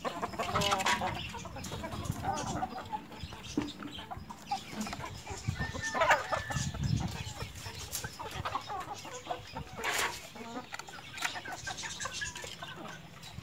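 A flock of Aseel (Asil) chickens clucking as they feed, with irregular overlapping calls and a few louder calls about six and ten seconds in.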